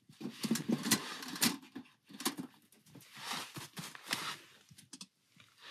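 Rustling and scattered light knocks of camping gear being handled on the tent floor, as a small kettle and mug are set out for coffee beside the stove.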